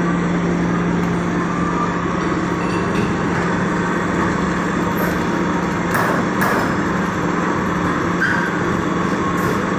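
Industrial lapping machine running steadily, its electric motors giving a constant low hum over a mechanical rumble while the laps turn, with a few light knocks about six seconds in and near the end.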